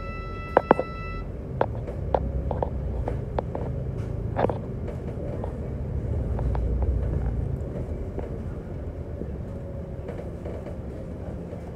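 Moving double-decker bus heard from inside: a steady low engine and road rumble that swells about six to seven seconds in. Sharp knocks and rattles from the bodywork sound during the first few seconds, the two loudest just after the start. A steady high tone cuts off about a second in.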